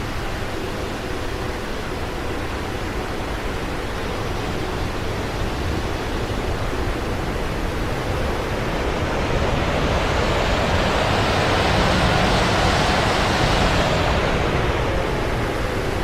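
Airplane noise: a steady rushing roar that swells louder and brighter about two-thirds of the way through, then eases off.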